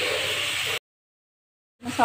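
Chicken and spices sizzling in hot oil in a wok as they are stirred, a steady frying hiss. It cuts off abruptly under a second in, followed by about a second of total silence.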